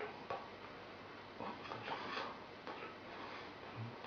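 Faint rustling with a few soft ticks, and a brief low hum near the end.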